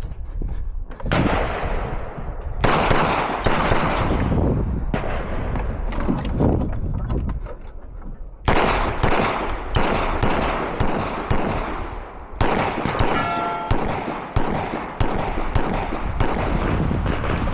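Handgun shots fired in a rapid string with uneven pauses, each shot with a short echoing tail. There is a brief ringing tone about 13 seconds in.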